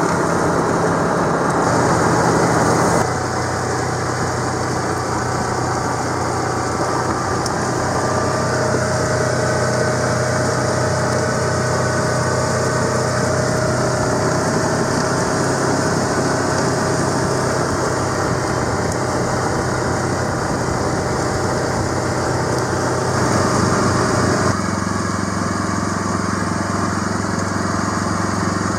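An engine running steadily, its tone stepping down about three seconds in and changing again a few seconds before the end.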